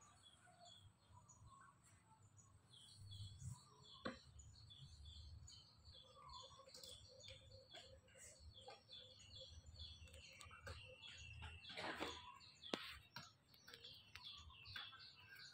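Faint, repeated short bird chirps near silence, with a soft tap about a quarter of the way in and a brief rustle and tap about three-quarters in: the dog pawing at the plastic pool liner.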